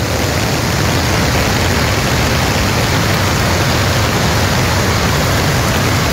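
Muddy floodwater rushing down a swollen stream in spate: a loud, steady rush of water.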